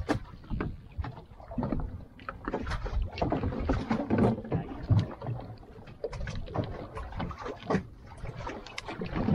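Sea water slapping and splashing against the hull of a small fishing boat: irregular knocks and splashes over a low wind rumble.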